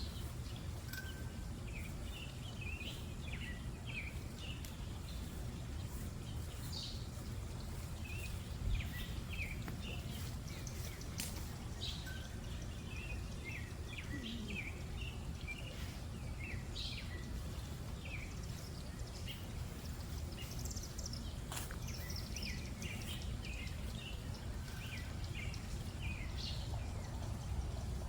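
Small birds chirping over and over, short high calls scattered throughout, over a steady low outdoor rumble, with a few sharp clicks here and there.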